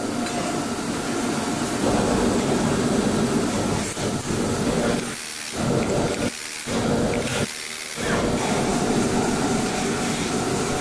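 Steady machinery noise of a factory floor, with a constant hum running under it. The lower part of the noise drops away briefly three times in the middle.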